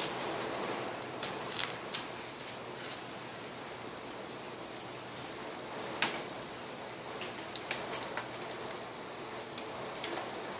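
Scattered light clicks and taps of a balsa model airplane's wing mount being handled and fitted onto its wooden motor stick, the sharpest about six seconds in.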